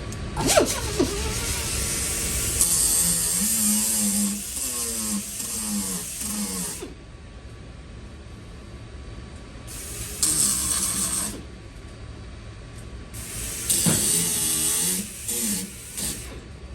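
A small power grinder running in three bursts, its pitch shifting under load, knocking down raised spots of build-up on a car's quarter panel. A sharp knock comes about half a second in.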